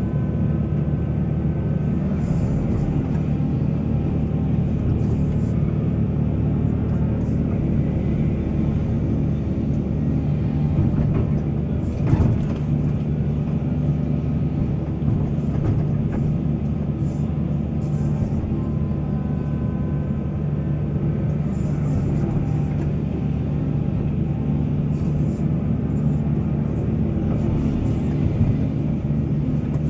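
Heavy diesel excavator engine running steadily under load in a mine, with faint higher whining tones coming and going. A single sharp knock about twelve seconds in.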